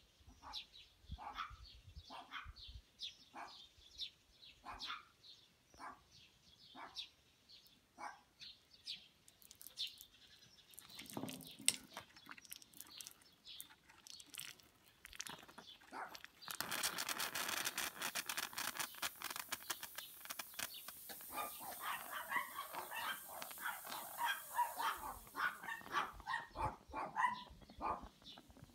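A dog barking repeatedly in short calls. From about sixteen seconds in a steady hiss joins, and the barking grows denser near the end.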